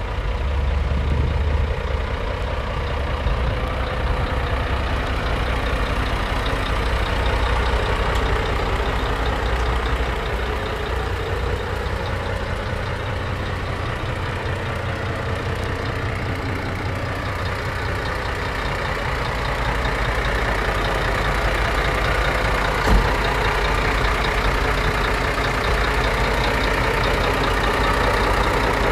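Scania R124 400's 11.7-litre straight-six diesel idling steadily, with one short knock about two-thirds of the way through.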